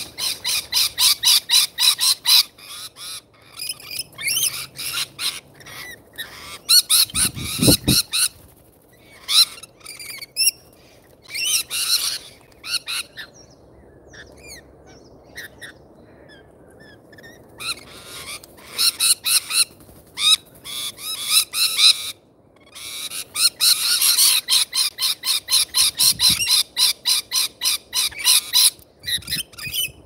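Parrots at a seed feeder screeching in rapid shrill bursts of many quick calls, each burst lasting a few seconds with short gaps between. A single low thud about eight seconds in.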